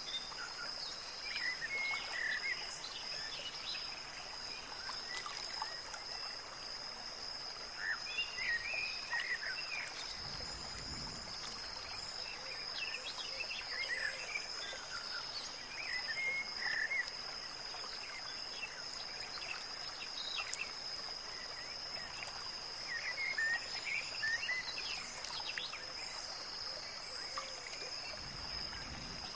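Outdoor nature ambience: a steady high-pitched insect drone with scattered short chirps over a faint hiss.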